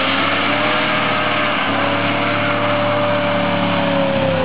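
Car engine held at high revs during a burnout, a steady high drone over the hiss of spinning tyres, dropping off as the throttle is released near the end.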